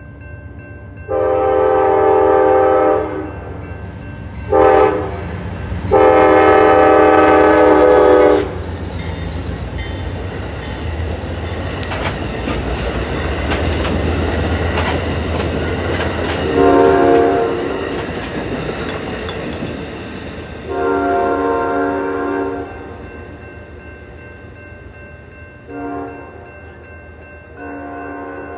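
Amtrak passenger train's horn sounding a long blast, a short blast and another long blast at a grade crossing. The train then rushes through with a rumble and clatter of wheels on the rails, while the crossing signal bell rings steadily. More horn blasts, long and short, sound as the train moves on.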